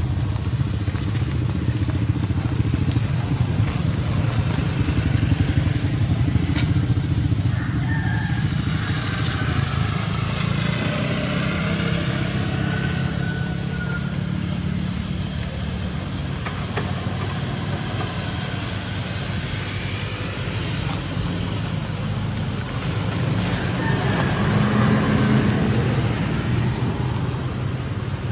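A motor vehicle engine running at a steady idle, a continuous low rumble, with a few faint clicks and higher sounds over it.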